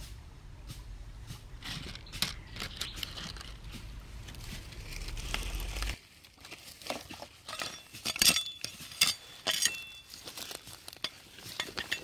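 Stones and dry leaf litter being handled and disturbed on gravelly ground: scattered sharp clicks, crackles and small clinks, thickest about two-thirds of the way in. A low rumble under the first half stops abruptly about halfway.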